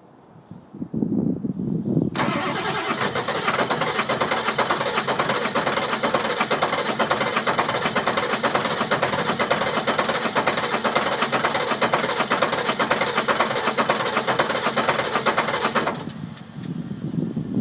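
A car engine being cranked by its starter motor for about fourteen seconds, a loud, fast, pulsing sound that begins and cuts off suddenly, on a car with a no-start problem. A lower, quieter sound runs before and after it.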